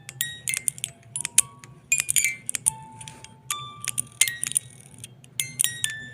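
Chimes tinkling: irregular light strikes several times a second, each ringing on as a clear note at one of several different pitches, over a low steady hum.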